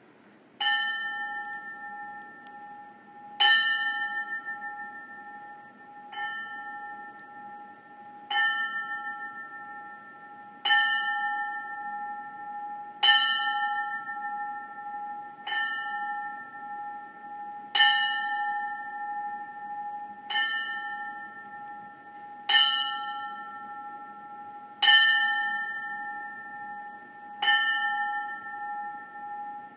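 Brass ship's bell struck slowly by its clapper, about a dozen single strokes roughly two and a half seconds apart. Each stroke rings on and fades until the next: a memorial tolling for the dead.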